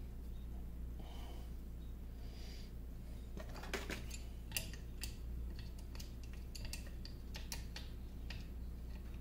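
Light metallic clicks and taps, a run of them from about three and a half seconds in, as a small handwheel and screw shaft on a lathe compound part are handled by hand, over a steady low hum.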